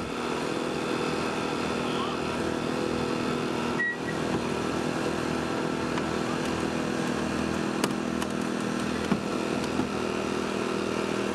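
Small gasoline engine of a hydraulic rescue tool's power unit running steadily, with a couple of sharp clicks in the second half.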